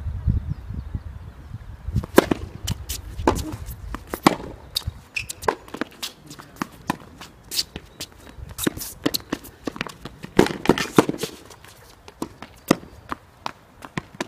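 Tennis being played: racquets striking the ball and the ball bouncing on the court, with footsteps, heard as an irregular series of sharp knocks.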